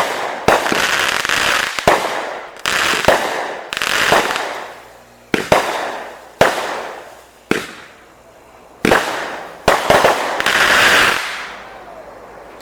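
Fireworks going off: about a dozen sharp bangs, one every second or so, each followed by a crackling hiss that fades over a second. They stop shortly before the end.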